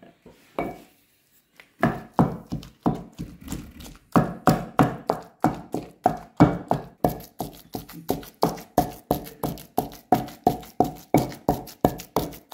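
Wooden pestle pounding cooked shredded chicken and lentils in a stone mortar: steady dull thuds about three a second, starting about two seconds in after a few light knocks, with one brief pause.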